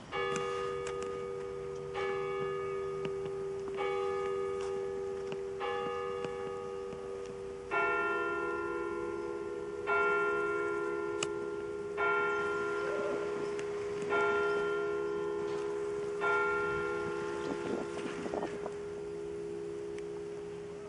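Church bells ringing, one strike about every two seconds, each with a long ringing hum. A second, deeper bell joins about eight seconds in.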